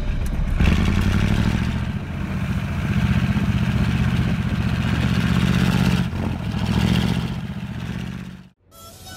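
Motorboat engine running steadily at speed, with water rushing past the metal hull; it fades out near the end.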